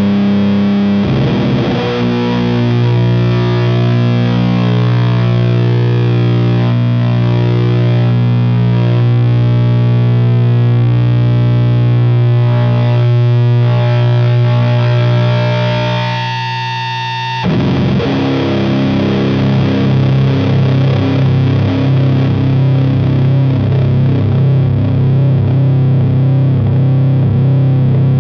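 Fender Jazzmaster electric guitar tuned to C standard, played through a Burden high-gain fuzz/distortion pedal and an Ampeg V4B amp, sounding heavy, sustained drone chords. A chord is struck about a second in and rings on for about fifteen seconds before fading; a new chord is struck just past the middle and held.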